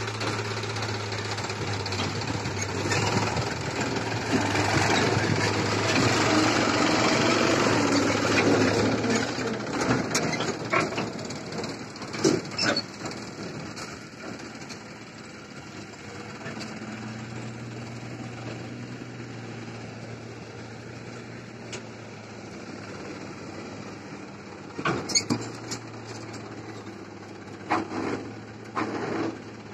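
Diesel tractor engines running under load while pulling trolleys loaded with earth through soft mud. The engine is louder for about the first ten seconds, then runs lower, with a few sharp clunks in the middle and near the end.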